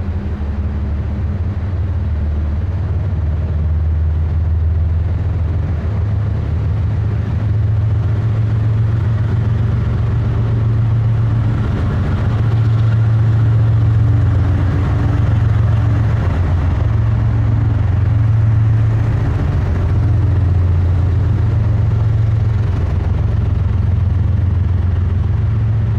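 Tail end of a CSX freight train of tank cars passing close by, its diesel locomotive engine giving a steady low drone over the rolling noise, loudest in the middle stretch.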